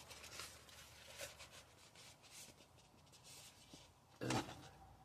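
Faint rustling and crinkling of a sheet of textured adhesive vinyl being handled and flexed, with a brief louder sound near the end.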